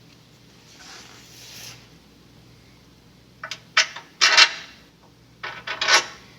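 Loose bolts and metal hardware clinking and clattering in two short bursts of sharp clicks about three and a half and five and a half seconds in, after a faint rustle.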